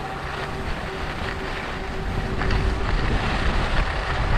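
Wind buffeting the microphone: a steady low rumble and hiss, growing a little stronger in the second half, with a faint steady hum underneath.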